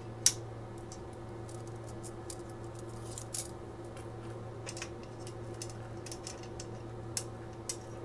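Scattered light clicks and taps as small parts of a laser-engraver sawtooth bed are slotted by hand into its frame, the first and loudest just after the start. A steady low hum runs underneath.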